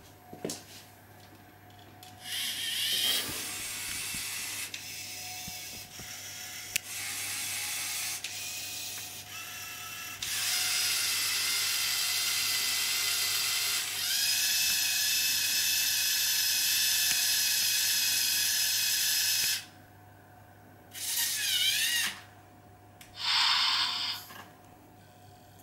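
LEGO Mindstorms EV3 servo motors driving a robot arm's plastic gear trains, whirring in a series of movements a few seconds long with short pauses between. The longest stretch runs about nine seconds through the middle, and near the end come two brief moves, one with a wavering pitch.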